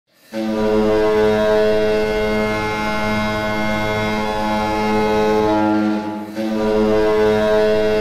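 Hockey arena goal horn blasting one long, steady, deep blast. It dips briefly about six seconds in, then sounds again.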